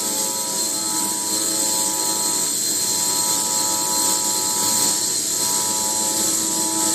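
Automatic CNC metal circular sawing machine running steadily: an even mechanical drone with several steady tones and a high hiss.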